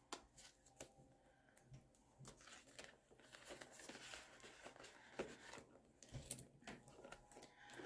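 Faint rustling and crinkling of paper dollar bills and plastic zippered binder pouches being handled, with scattered light clicks and taps.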